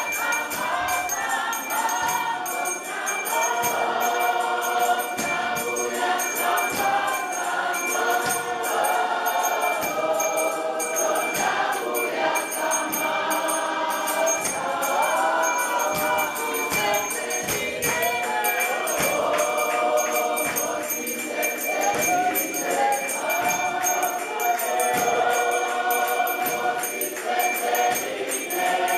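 Church choir singing, many voices together, over a steady percussive beat.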